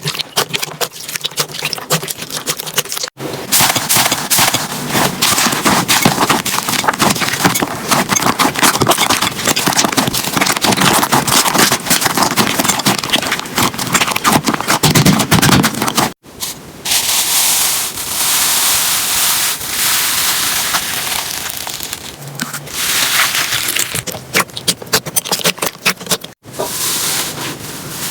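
Slime being squeezed, poked and stretched by hand, with dense crackling and popping clicks. It breaks off abruptly three times as one clip gives way to the next.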